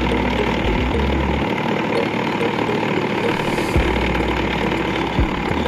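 Cotton candy machine running, its motor-driven spinning head giving a steady mechanical hum while sugar floss is spun out into the bowl.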